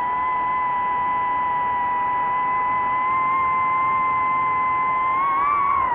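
DJI FPV drone's electric motors and propellers whining at a steady high pitch, then wavering up and down in pitch near the end as the throttle changes.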